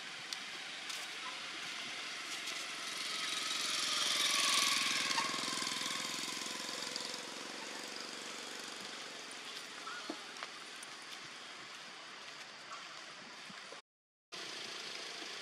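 Steady outdoor hiss that swells to its loudest about four to five seconds in and then settles back, with a few faint clicks.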